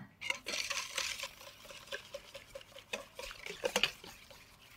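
Wire whisk beating eggs and sugar in a stainless steel bowl: a quick, regular ticking of the wires against the bowl, with a light scraping.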